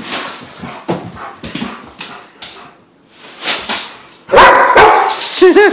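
Scuffling and rustling for about four seconds, then a dog breaks into loud, excited barks and yips with rising and falling pitch.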